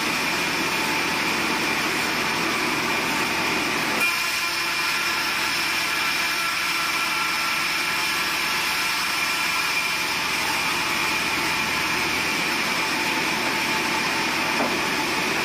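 Sawmill band saw running steadily and cutting a long, thin board as it is fed through, with a faint high whine. There is a small knock about four seconds in.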